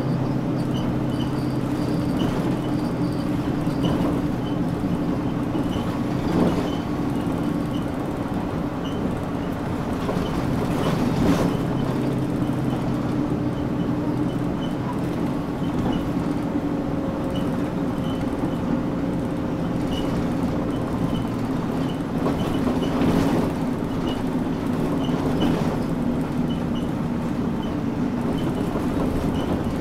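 Mitsubishi Fuso Aero Midi (KK-MK27HM) mid-size city bus driving between stops, heard from inside the cabin: a steady diesel engine and road noise. The engine note changes about a second in, and a light, regular ticking runs through much of it.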